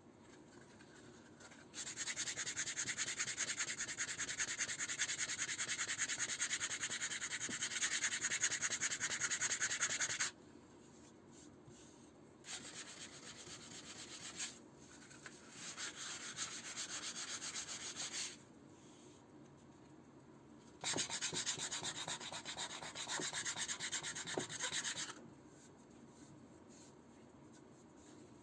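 Hand sanding of wood, a rapid rubbing hiss in four spells: a long one of about eight seconds, two short ones in the middle, and one of about four seconds near the end.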